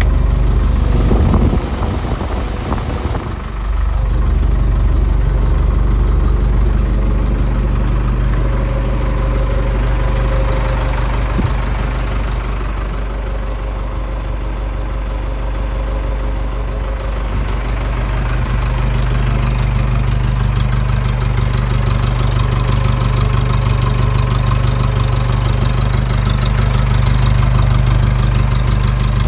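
Backhoe loader's diesel engine running steadily, with a brief dip about two seconds in and running harder over the second half.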